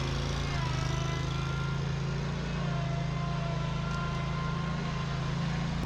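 A large engine running steadily at a constant speed, a deep even hum with a whine of higher tones above it.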